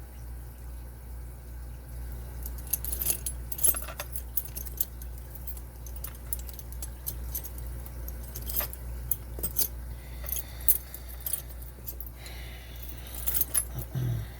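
Small metallic clicks, ticks and scrapes of a screwdriver prying at the retaining clip inside a Lane Security padlock, working it loose. The scraping is busiest near the end. A steady low hum runs underneath.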